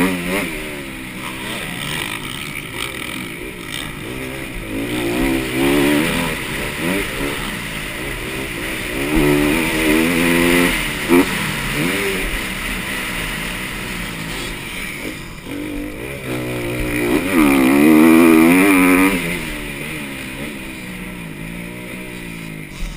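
Motocross dirt bike engine revving hard and falling back again and again as it accelerates down the straights and backs off the throttle for jumps and turns. A short sharp knock sounds about eleven seconds in.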